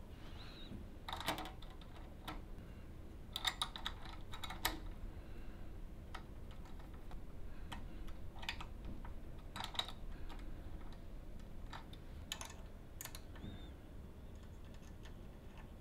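Faint, scattered small clicks and taps of a hex key and a small wrench working M5 socket-cap bolts and nuts, fastening a license plate to a metal mount.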